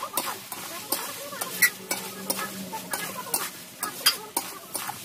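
A long metal spatula stirring chicken pieces in a metal kadai, scraping and clinking irregularly against the pan, over a sizzle of frying masala with tomato puree just added.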